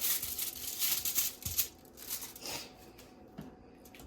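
Aluminium foil crinkling as it is handled, a dense crackly rustle for about a second and a half that dies away by about three seconds in, leaving a few faint ticks.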